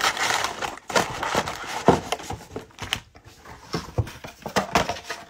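Cellophane-wrapped trading-card packs crinkling as they are pulled out of a cardboard box, followed by a few light knocks and taps as the packs are stacked on the table.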